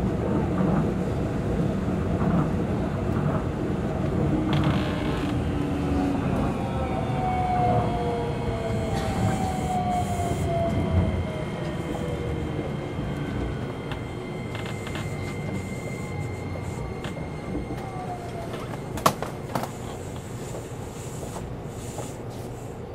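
Tokyo Monorail 2000 series car running, heard from on board: a steady rumble of running noise with electric motor whine, whose tones glide down in pitch in the middle. The running noise drops noticeably about halfway, a steady high whine carries on, and a single sharp click comes near the end.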